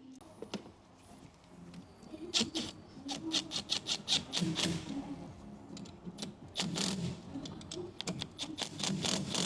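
Hand tools and metal parts clicking and rattling in quick runs, in two spells starting about two seconds in and about six and a half seconds in.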